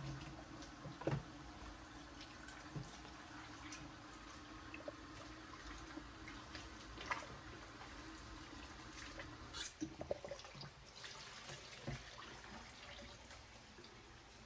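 Faint running of a kitchen tap into a stainless-steel sink as raw chicken pieces are rinsed by hand in a plastic container, with light splashing and occasional small knocks of the container against the sink.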